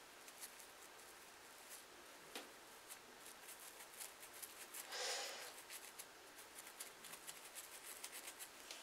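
A fine-tooth comb scraping along a dry, flaky scalp, lifting crunchy flakes: faint crackling ticks, with one longer, louder scrape about five seconds in.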